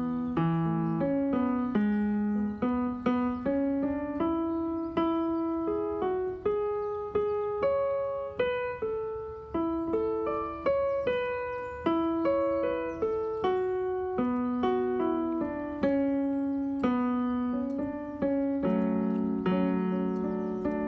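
Background music played on an electronic keyboard with a piano sound: a slow melody of struck notes, each fading away, over lower notes.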